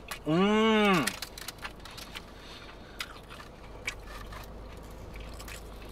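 A hummed "mmm" of enjoyment, then a mouthful of Korean corn dog with hot dog and cheese being chewed: scattered soft clicks and crunches.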